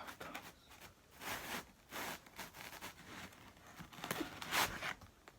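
Several short bursts of tearing and rustling as pizza slices that weren't cut all the way through are pulled apart by hand; the loudest comes near the end.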